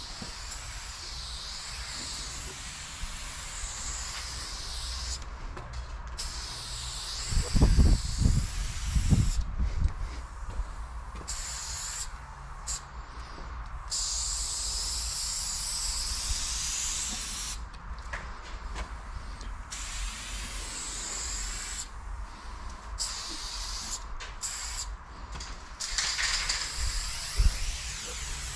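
Aerosol spray paint can spraying in repeated bursts of hiss, starting and stopping as lines are drawn on a brick wall. A few dull low thumps come about eight and nine seconds in.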